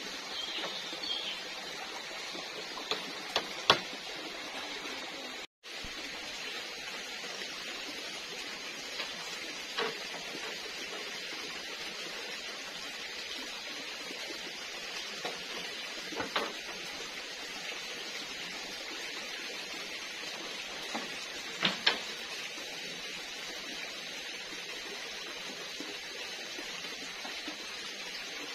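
Steady high-pitched hiss of forest ambience, with a few sharp knocks every several seconds, the loudest about four seconds in and again near the end of the second third.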